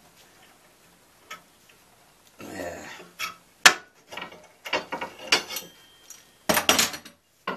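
Sharp clicks and knocks of metal clamps and tools being worked loose and handled on a workbench, in separate strikes with a loud cluster near the end.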